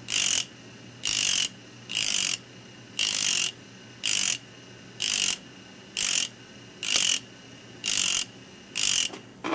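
Small high-speed steel drill being reground on a spinning black carborundum disc, its tooth touched to the disc in short grinding bursts about once a second, over a faint steady motor hum. The cutting edges of the worn drill are being resharpened.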